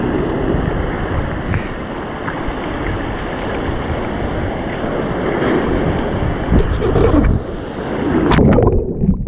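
Breaking surf and foaming whitewater rushing around a waist-deep wader, heard up close on an action camera's microphone at water level, with wind on the microphone. Near the end a wave slams over the camera in a loud splash.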